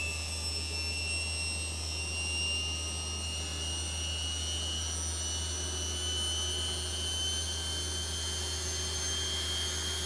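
Bosch Maxx 6 VarioPerfect washing machine on a high-speed spin: a steady low drum rumble under a high whistle that slowly rises in pitch as the motor speeds up. The whistle comes from newly replaced carbon brushes on the motor that have not yet bedded in, and it fades once they wear in.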